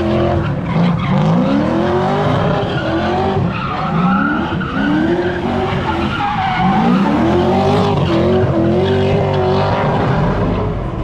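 Car doing donuts: its engine revs up and drops back again and again, about every two seconds, over the steady screech of spinning tires.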